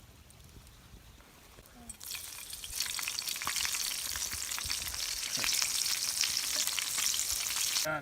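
Large stoneflies (salmon flies) frying in olive oil: a dense sizzle full of small crackles starts about two seconds in, grows louder, and cuts off sharply near the end.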